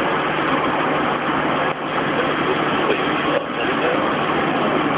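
Steady noise of a moving vehicle heard from inside the cabin: engine and road noise with no breaks, apart from two brief dips.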